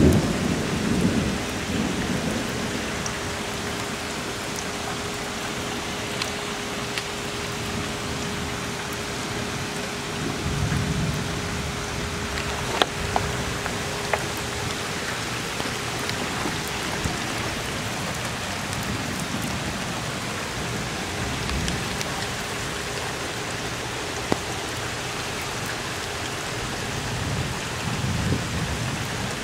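Steady heavy rain during a thunderstorm. A loud thunder rumble dies away in the first second, softer low rumbles come about ten seconds in and again near the end, and a couple of sharp taps stand out.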